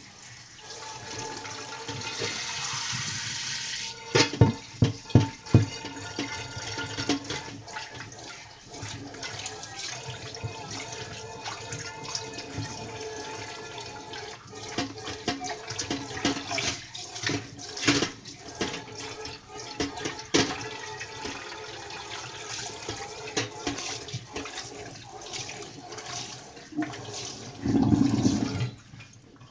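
Washing a greasy frying pan at a kitchen sink: tap water running and the pan scrubbed and handled, with several sharp clatters of the pan about four to six seconds in and a louder rush of water near the end.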